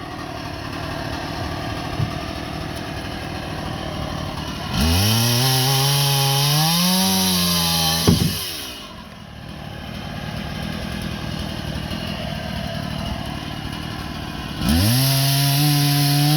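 Small gasoline engine revving up twice, each time rising quickly in pitch, holding high for about three seconds and dropping back, with steady lower running in between. A sharp knock comes as the first rev drops off.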